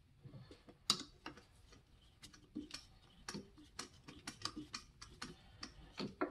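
Faint, irregular metallic clicks and ticks, roughly three a second, the sharpest about a second in, as a T-handle hex key is turned to drive a bolt into a motor housing and press the gearbox shaft out.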